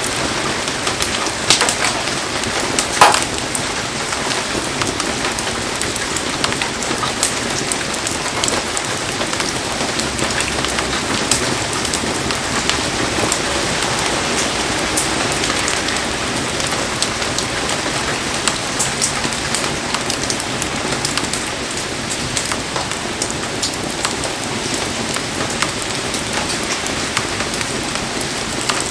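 Heavy rain falling steadily, a dense hiss dotted with many sharp drop ticks; two louder sharp snaps come near the start.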